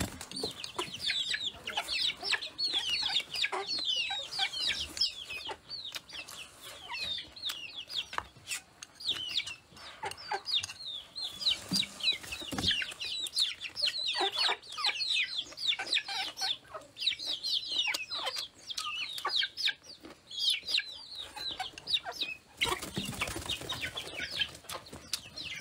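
Chickens cheeping and clucking close by: a continuous stream of short, high, falling chirps, over the small clicks of chewing. A brief rushing noise comes near the end.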